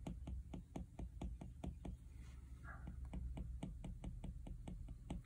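Apple Pencil tip tapping on an iPad Pro's glass screen in quick short sketching strokes, about five light ticks a second.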